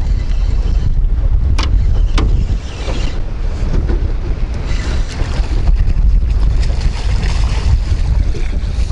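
Strong wind buffeting the microphone: a heavy, uneven low rumble. Two short sharp clicks come about one and a half and two seconds in.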